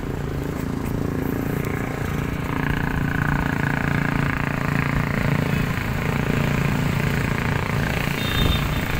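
Small motorbike engine running steadily while the bike is ridden, heard up close from the seat.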